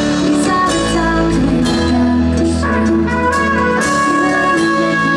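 Live band music played through a concert PA, heard from the crowd: a full band with guitars and drums, with long held notes.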